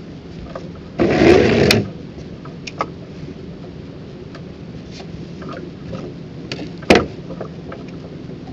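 Handling noise from a spinning rod and reel just after a cast: a short rush of noise about a second in, then scattered light clicks and one sharp click about seven seconds in.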